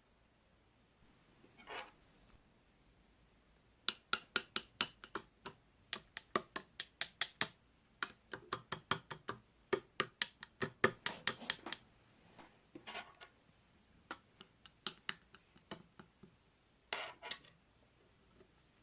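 Slime being pressed and squeezed by hand, giving runs of sharp, wet clicks and pops, several a second, with a longer crackling squish near the start and another near the end.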